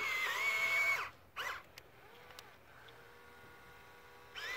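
RC tracked skid-steer loader's electric drive motors and gears whining at a steady pitch, stopping about a second in, then giving two short whirs as it is driven in brief bursts.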